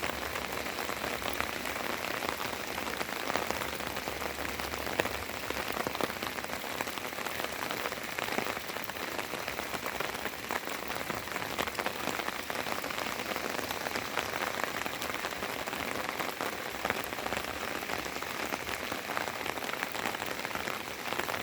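Steady spring rain falling, a continuous hiss with many individual raindrops ticking through it.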